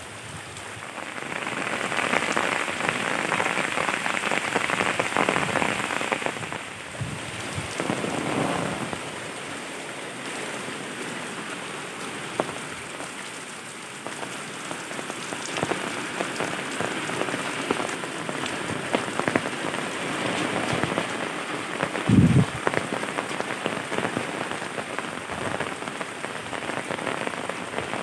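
Rain falling steadily, swelling louder for a few seconds near the start. One short low thump sounds about three quarters of the way through.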